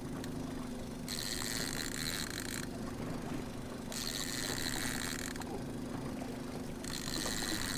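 Fishing reel being cranked in spurts, a whirring that starts and stops three times as a hooked walleye is reeled in, over the steady low hum of the boat's motor.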